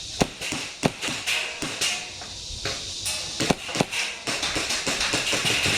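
Airsoft guns firing: sharp single pops at irregular intervals through the first four seconds, then a quicker run of fainter clicks near the end.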